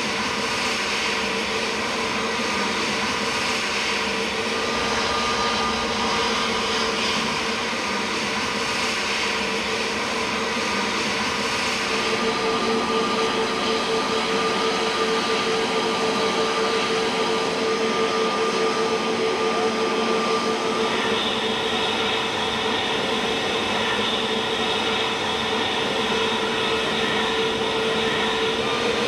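Airliner jet engines running steadily: a rushing noise with a steady whine through it. A higher whine joins about two-thirds of the way through.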